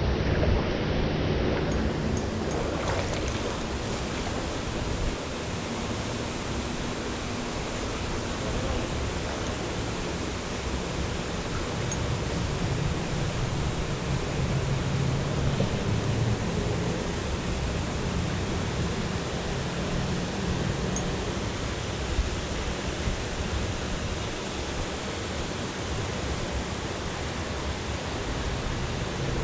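Creek water rushing steadily over a shallow riffle, an even hiss with a shifting low rumble underneath.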